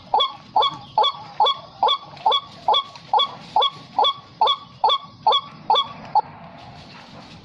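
White-breasted waterhen calls: a short, falling note repeated evenly about twice a second, stopping about six seconds in.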